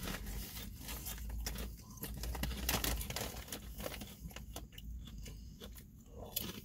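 Honey butter potato chips crunching as they are chewed, with the crinkly chip bag rustling in between: irregular crackles throughout.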